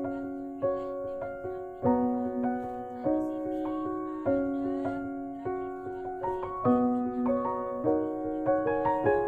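Background piano music: a slow melody of struck notes over held chords, each note fading after it is struck.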